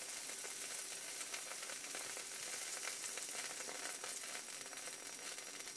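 Pancake batter frying in melted butter in a hot frying pan: a steady sizzle with fine crackling.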